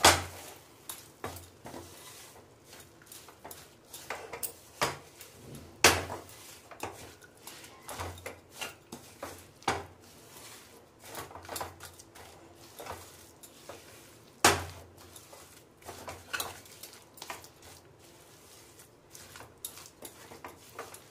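Wooden spatula stirring a thick dry-fruit and sugar-syrup mixture in a stainless steel kadhai, with irregular knocks and scrapes of the spatula against the pan. The loudest knocks come right at the start and about six and fourteen seconds in.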